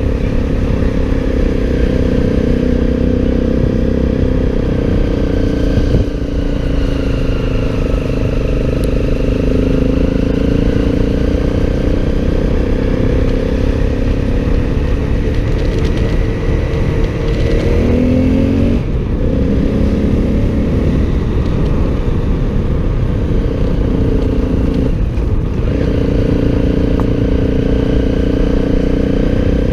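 Motorcycle engine running steadily while riding, over a constant low rumble. The engine note briefly drops and recovers twice in the second half.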